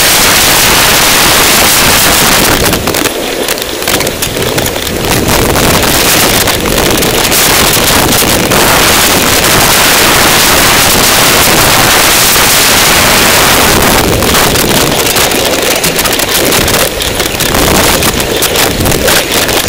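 Loud wind buffeting the microphone of a camera moving fast along a dirt trail: a constant rush of noise that eases briefly a few seconds in and again near the end.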